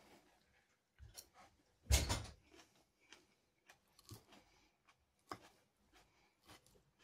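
Quiet eating sounds: a fork knocking and scraping on a plate and salad being chewed, as a handful of short sudden sounds. The loudest is a thump about two seconds in.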